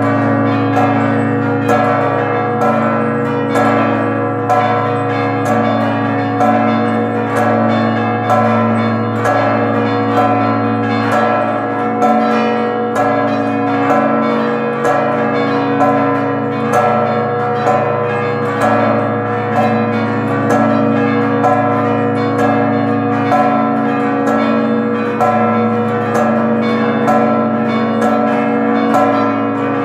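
A peal of large church bells ringing festively: several bells struck in a fast, steady rhythm, their tones overlapping over the long hum of a deep bell.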